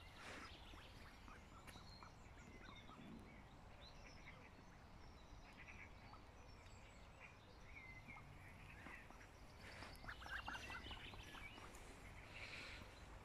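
Faint mallard ducks calling softly, with scattered short chirps and a few louder calls later on, over a low steady rumble.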